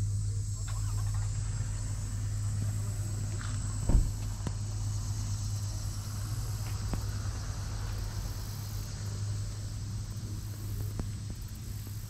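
Steady low hum, typical of a running engine, with one sharp knock about four seconds in and a faint steady high-pitched tone.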